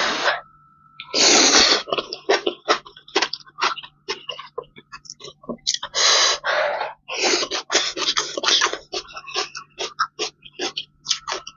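A person slurping and chewing spicy soup noodles close to the microphone: loud slurps about a second in and again around six seconds in, with many short wet mouth clicks from chewing in between.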